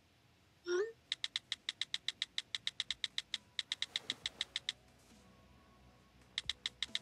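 A brief wavering pitched call, then a rapid run of sharp, evenly spaced clicks, about eight a second, like fast typing; the clicks pause for more than a second and start again near the end.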